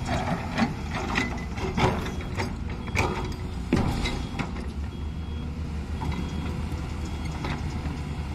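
Hyundai crawler excavator's diesel engine running steadily while digging, with sharp metallic clanks and knocks through the first half. A short high beep sounds about once a second in the second half.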